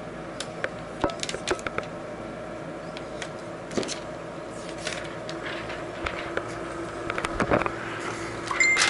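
Protective plastic film being peeled off a new laptop LCD panel and handled: scattered light crackles and ticks, with a louder rustle near the end.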